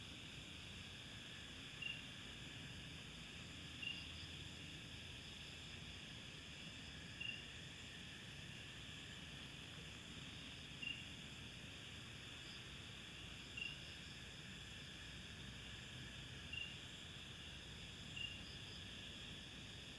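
Faint night chorus of insects, a steady high-pitched hum, with a short high chirp standing out every two to three seconds.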